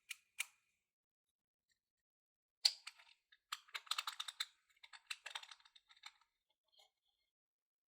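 Light, sharp clicks from a fidget slider being handled while it is unboxed. Two clicks come just after the start. After a pause of about two seconds there is a quick, irregular run of clicks and taps lasting about three and a half seconds.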